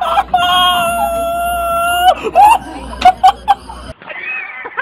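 A person screaming: one long, steady, high-pitched scream of about two seconds, then a string of short yelps. Near the end comes a brief rising-and-falling call.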